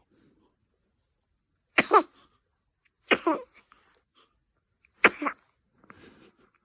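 Baby sneezing three times in a row, each a sharp burst with a short falling squeak after it, the sneezes about a second and a half apart.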